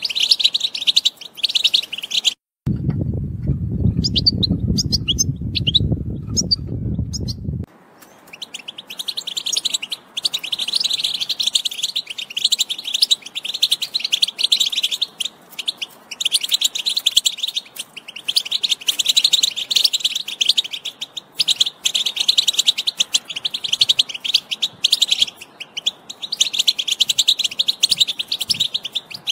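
European goldfinch song: a fast, unbroken stream of twittering notes. About three seconds in, the song drops out for some five seconds and a low noise takes its place, with only a few scattered chirps, before the twittering resumes.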